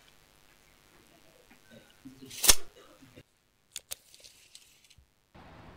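Steel tape measure being handled: a short rattle ending in a loud snap about two and a half seconds in, as of the blade retracting into its case, then two sharp clicks about a second later.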